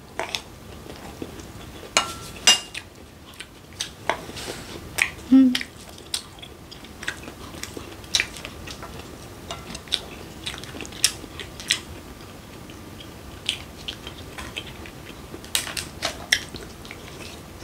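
A person chewing and biting food, with irregular sharp clicks of a wooden spoon and chopsticks against a ceramic plate.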